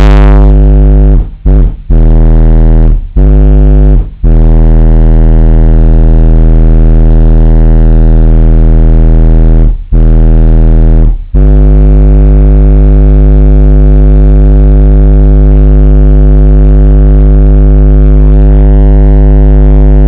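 Audiopipe TXX BF-15 subwoofers playing a 50 Hz test tone at high power. It is a loud, steady, heavily distorted bass drone that drops out briefly about six times in the first eleven seconds, then holds steady.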